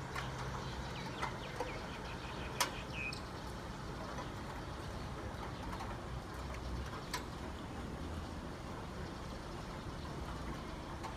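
Steady rain falling, an even hiss with a few sharp ticks, the clearest two about two and a half and seven seconds in.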